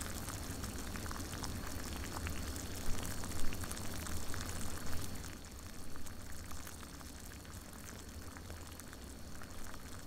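Tap water boiling in a stainless steel saucepan, a steady bubbling hiss with scattered small pops. It grows quieter about halfway through as the pan boils nearly dry.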